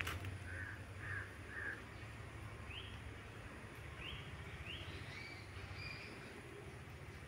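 Faint bird calls: three short calls in quick succession about a second in, then several short, higher calls, some in pairs, over a steady low hum.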